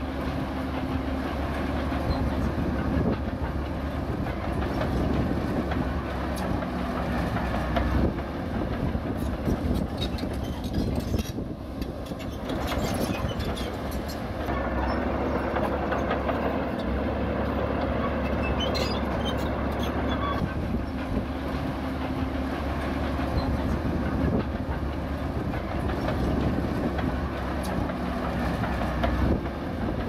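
Zoomlion ZD160S-3 crawler bulldozer working, its diesel engine running under load with the pitch shifting up and down several times. Its steel tracks clank and rattle throughout.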